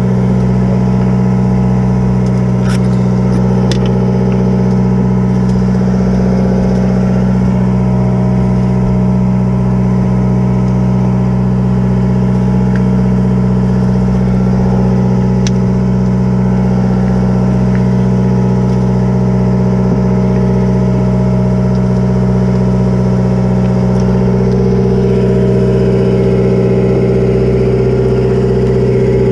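A boat's engine running steadily, a constant low drone. One tone in it grows stronger over the last few seconds.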